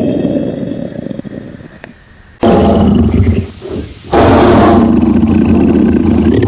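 Big cat roaring. One call fades out over the first two seconds. A loud roar then starts abruptly about two and a half seconds in, breaks briefly, and comes back loud again.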